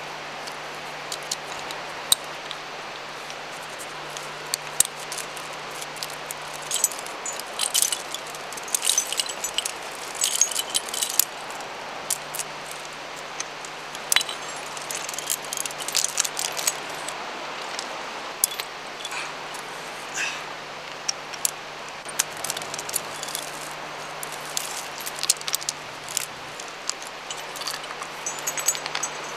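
Rock-climbing protection (camming devices and a hex nut) clinking and jangling as it is placed in a rock crack: irregular clusters of sharp metallic clicks, busiest about a third of the way in and again near the middle.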